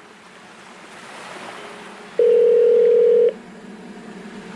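A telephone ringing tone: one steady low beep lasting about a second, a little over two seconds in, over a faint hiss.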